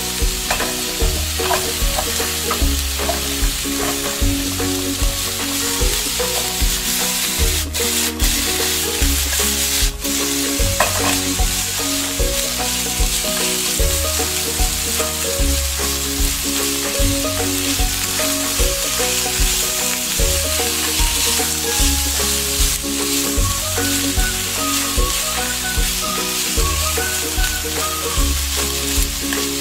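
Chicken pieces sizzling in hot oil in a nonstick pot while a wooden spatula stirs them, over background music with a steady low beat.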